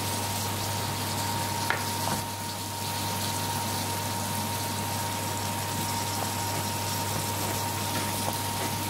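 Steady kitchen hiss with a low hum and a thin high whine, under a few faint taps of a chef's knife on a bamboo chopping board as raw chicken breast is cut into small pieces.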